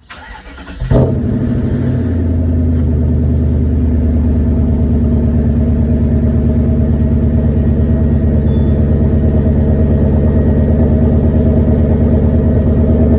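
BMW E39 M5's S62 4.9-litre V8 starting: the starter cranks for about a second, the engine catches with a brief loud flare, then settles into a steady idle.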